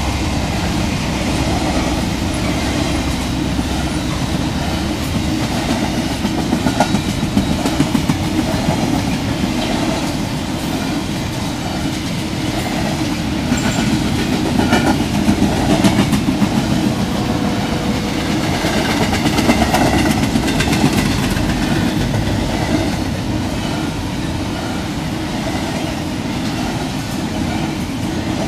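Freight train cars rolling steadily past, a loud continuous rumble of steel wheels on rail with repeated clicks as the wheels cross rail joints.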